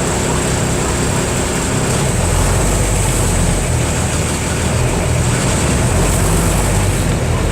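Diesel engine of a Mercedes-Benz OF 1318/51 bus running steadily; about two seconds in its low note shifts and grows a little louder.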